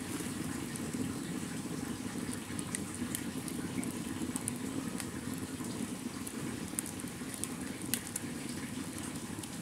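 Open wood fire burning under a lidded cooking pot: a steady low rumble with scattered sharp crackles and pops from the burning wood.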